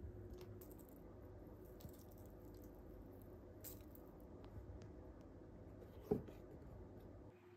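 Near silence: quiet room tone with a faint steady hum, a few soft clicks, and one sharper tap that rings briefly about six seconds in.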